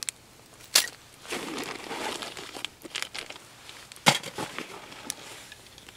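Plastic zip-lock bag and other plastic packaging crinkling as they are handled and put down, with sharp crackles about a second in and again about four seconds in.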